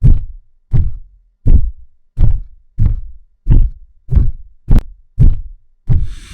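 Heavy booming footstep sound effects of a giant dinosaur (T-Rex), about ten deep thuds at a steady pace of roughly one and a half a second.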